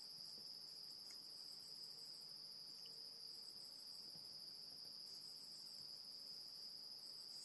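Near silence with the faint, steady high-pitched trill of crickets.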